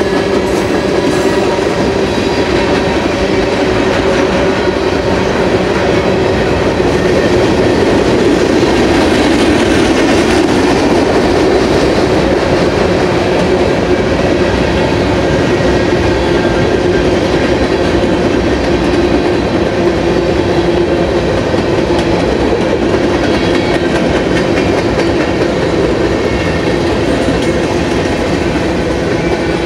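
Freight cars of a Union Pacific train, tank cars and then covered hoppers, rolling past: steel wheels on the rails make a loud, steady noise with a few faint steady ringing tones over it.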